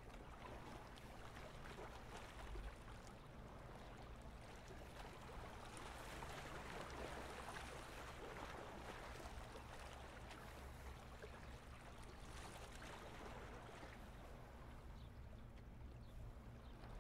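Faint lapping of small lake waves against a stony shore, swelling and easing gently, over a low steady hum.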